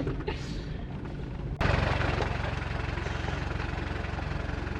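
4x4 engine running at low revs. About a second and a half in, the sound jumps abruptly to a louder, steady engine note with a fast even pulse.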